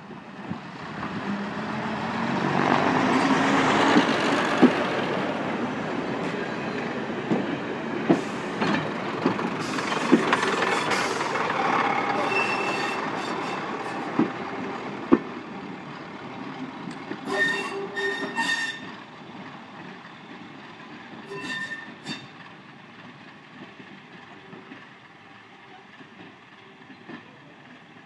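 Class 119 two-car diesel multiple unit passing close by and pulling away: its diesel engine and running noise rise to a peak about four seconds in, then fade. The wheels click over rail joints, and there are a few brief high-pitched wheel squeals around the middle.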